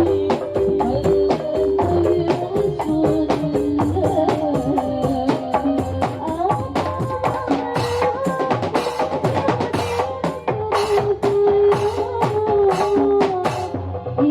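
A marawis ensemble playing: hand drums struck in a dense, fast rhythm under a held, sliding melodic line.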